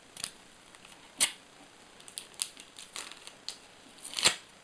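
Sharp clicks and snips of scissors cutting open a paper sticker packet, a handful of separate strokes with the loudest about a second in and near the end.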